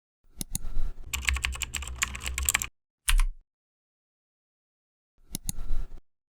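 Keyboard typing sound effect: a fast run of key clicks for a couple of seconds, a single click with a low thump about three seconds in, then a brief second burst of clicks near the end.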